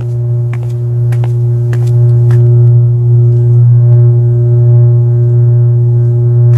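Loud, steady electric hum of overhead power lines: a low drone with a ladder of higher overtones and a few faint crackling clicks. It swells a little about two seconds in.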